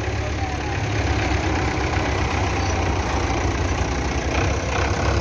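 Belarus tractor's diesel engine running steadily, a little louder after about a second.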